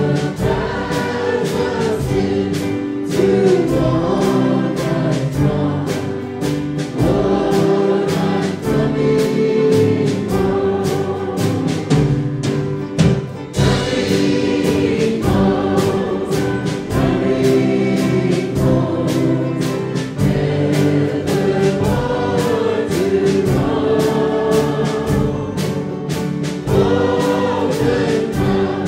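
Live gospel vocal group singing in harmony into microphones, backed by upright bass and keyboard, with a steady beat.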